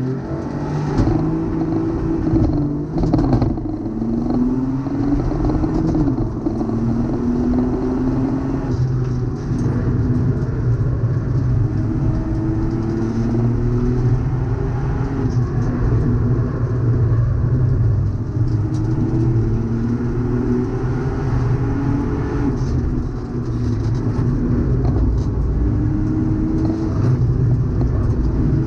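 Ford Fiesta ST race car's turbocharged three-cylinder engine heard from inside the caged cabin, rising in pitch as it pulls through each gear and dropping back at every gear change, again and again, over constant road and tyre noise.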